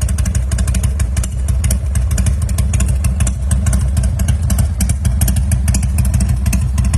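Harley-Davidson Softail's V-twin engine idling loudly with an uneven, loping beat through the exhaust.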